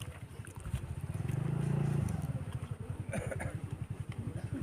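A motor vehicle engine running with a rapid, even throb. It swells briefly about two seconds in, then settles back to a lower, pulsing run.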